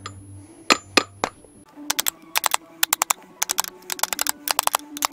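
Quick light hammer taps on a PVC pipe used as a seal driver over a motorcycle fork tube, tapping a new fork oil seal down into the fork leg on opposing sides to seat it evenly. A few spaced taps about a second in, then fast runs of taps from about two seconds in.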